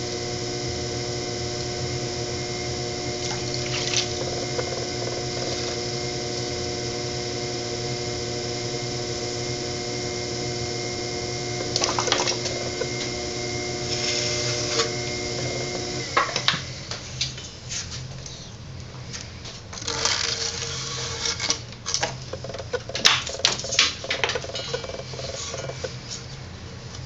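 Electric potter's wheel motor running with a steady whine, cut off suddenly about sixteen seconds in. Afterwards come irregular wet handling sounds and knocks.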